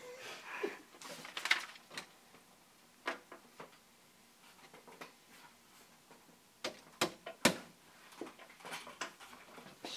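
Scattered rustles and light taps of paper pages being handled and turned in a ring binder, with two sharper knocks about seven seconds in.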